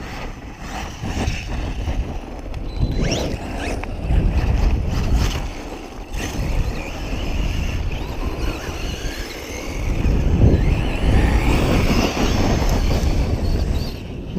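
Brushless electric motor of a Redcat Volcano EPX Pro RC monster truck whining as it accelerates and slows repeatedly while driven on dirt, with wind buffeting the microphone.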